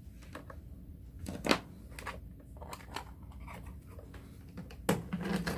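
Scattered light clicks and taps of hands handling laptop battery cells and multimeter probes. The sharpest click comes about a second and a half in, and another near the end.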